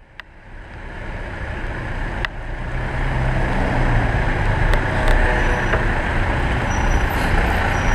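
City road traffic on a wet road: vehicle engines and tyre noise over a steady low rumble. The sound fades in over the first few seconds, with a few sharp clicks.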